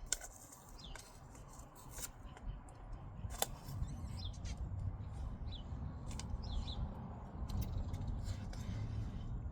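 Small clicks and rustles of hands working at seed planting, with a few short bird chirps and a low outdoor rumble.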